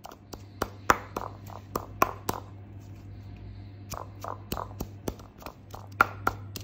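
Wooden pestle pounding mint leaves in a stone mortar: a run of sharp knocks, about three or four a second, with a pause of about a second and a half in the middle.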